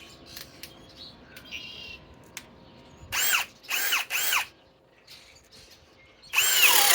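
Cordless drill with a 1 inch spade bit: a few light handling clicks, then three short trigger pulls about three seconds in, the motor spinning up and winding down each time. Near the end the drill starts for good, its pitch falling and then holding as the spade bit begins boring into the wood.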